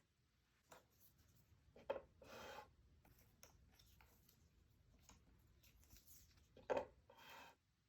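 Cardboard jigsaw puzzle pieces handled close to the microphone. There is a sharp tap about two seconds in and another near the end, each followed by a short sliding rub, with a few faint small clicks between.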